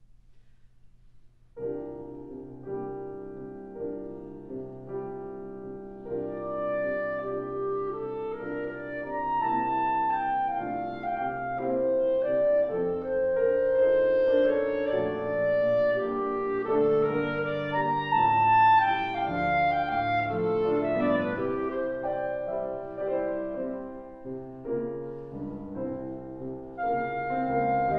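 Clarinet and grand piano playing classical chamber music together, entering about a second and a half in after a short quiet pause; the clarinet carries a melody that climbs and falls over the piano's chords.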